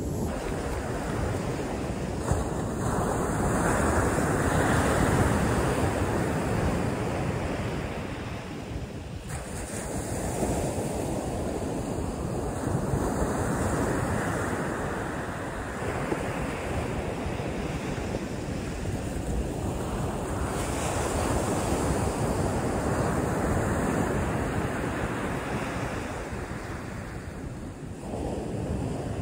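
Ocean surf breaking on a beach, a wash that swells and fades every several seconds, with wind buffeting the microphone.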